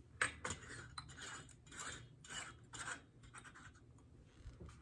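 A light bulb's metal screw base being twisted into a table lamp's socket: a quick run of short, faint scratching and clinking scrapes as the threads turn, mostly in the first three seconds.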